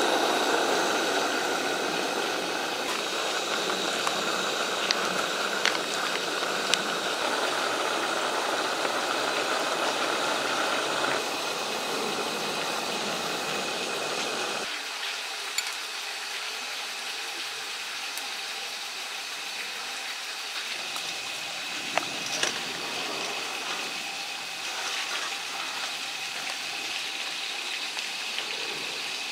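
Portable butane stove burner hissing steadily under a frying pan, with a few faint ticks. The hiss drops off sharply about halfway through, leaving a quieter steady hiss with a thin high tone.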